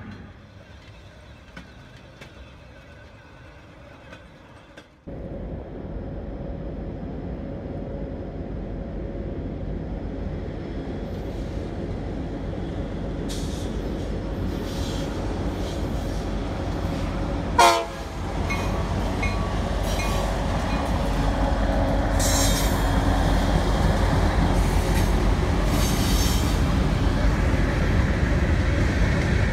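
Two CSX diesel freight locomotives and their cars approaching and rolling onto a trestle, the engine rumble and rail noise growing steadily louder, with a high hiss of wheels on the rails in the last several seconds. A brief sharp sound stands out a little past the middle. Before that, the first few seconds hold quieter road and crossing sound from inside a car, which cuts off abruptly.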